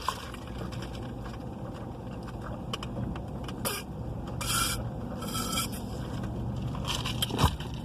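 Rustling and scraping of a burrito's foil wrapper as the leftover is wrapped up, in several short crinkles over a low steady hum, with a sharp click near the end.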